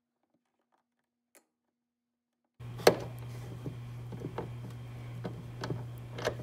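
Near silence, then a steady low hum starts suddenly about two and a half seconds in. Over it come irregular sharp clicks, one or two a second, from an 8mm socket ratchet wrench working the tail light's mounting nuts.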